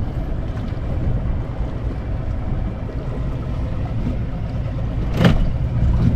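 Boat's outboard motor idling, a steady low hum, with a single sharp knock about five seconds in.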